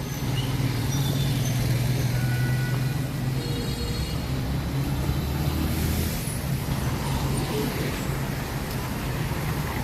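Street traffic with a motor vehicle's engine running close by, a steady low hum.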